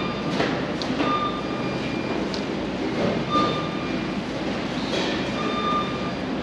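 Steady background din inside a supermarket, with short high tones sounding now and then.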